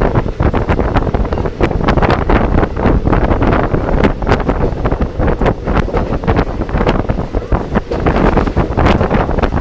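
Wind buffeting a phone microphone at the window of a moving train, over the train's running rumble, with frequent irregular clicks and knocks.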